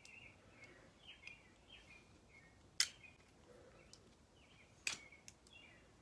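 Two sharp metal clicks about two seconds apart as a balisong's handles are swung open and shut, over faint bird chirps.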